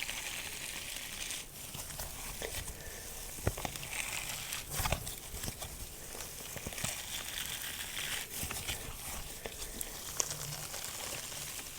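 Hands squishing, stretching and folding slime, giving a continuous crackly, crinkly texture with many small pops and clicks.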